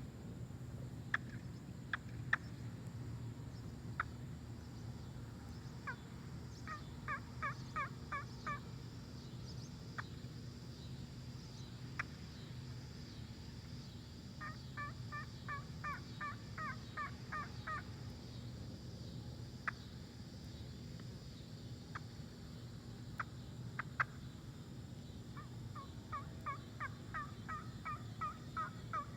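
Turkey trumpet call of ancient bog oak with an acrylic mouthpiece, mouth-blown in three runs of quick turkey yelps, about four notes a second. Single short, sharp calls are scattered between the runs.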